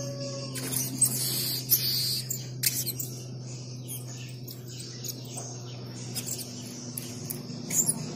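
Blue-crowned hanging parrot (serindit) giving short, sharp, high-pitched squeaky calls, a few in the first three seconds and again near the end, over a steady low hum.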